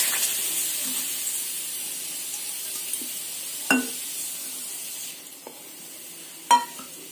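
Sugar and water sizzling and hissing in a hot frying pan just after the water has gone in, the hiss dying away steadily as the syrup settles into a bubbling boil. Two sharp knocks come about four and six and a half seconds in.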